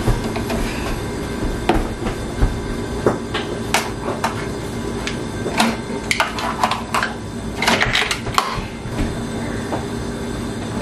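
Scattered plastic clicks and knocks as a Keurig single-serve coffee maker's lid is lifted, a K-cup pod is handled and dropped into the holder, the lid is shut and a button is pressed. A steady low hum runs underneath.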